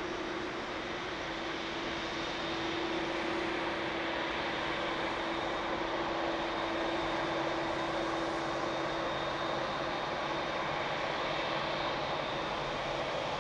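Boeing 787-9's GEnx turbofans running at taxi power: a steady jet whine and rush, growing a little louder a couple of seconds in as the airliner turns toward the listener. A steady low hum fades about halfway through.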